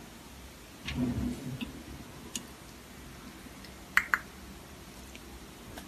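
A dresser drawer being pulled open, with a low sliding rumble about a second in. A few light clicks follow, then a sharper double click later on.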